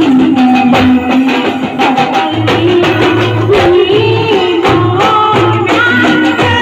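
Indian procession band music: a man sings through a microphone over a clarinet melody with a regular low beat. The melody holds and slides between notes.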